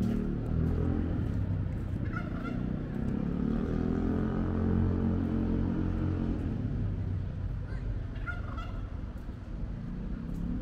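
Road traffic running steadily, with two short honking calls, one about two seconds in and another about eight seconds in.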